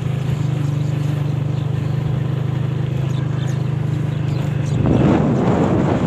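Motorcycle engine running at a steady cruise while riding, a low even hum. About five seconds in, wind buffeting on the microphone rises over it.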